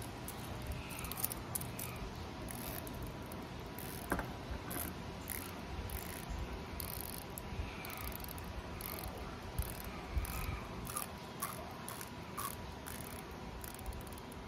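Rotating bezel of a Seiko 5 Sports Sea Urchin diver's watch being turned by hand, giving runs of small, quick ratchet clicks.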